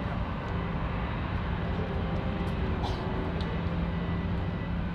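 Jet airliner landing: a steady low engine rumble with faint steady tones above it.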